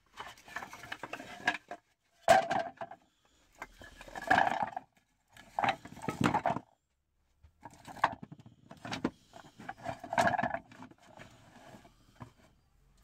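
Scrap wood boards and thin MDF strips being set down by hand on a board, knocking and scraping against each other in a series of separate clattering handfuls.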